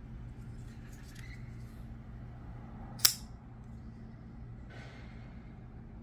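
Kizer Sparrow folding knife's blade snapping open and locking with one sharp metallic click about halfway through. Faint handling scrapes come before and after it.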